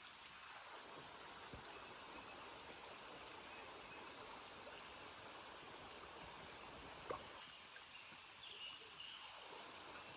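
Small creek flowing: a faint, steady rush of running water, with one small click about seven seconds in.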